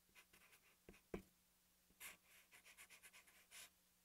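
Felt-tip marker drawing on paper: faint squeaky, scratchy pen strokes, with a light tap of the tip about a second in and a quick run of strokes in the second half.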